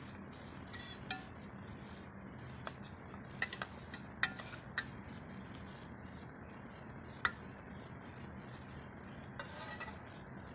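A steel spoon clinking and scraping against a nonstick pan as it turns pieces of battered brinjal, in a handful of sharp, irregular taps and a short run of small clicks near the end, over a steady low hum.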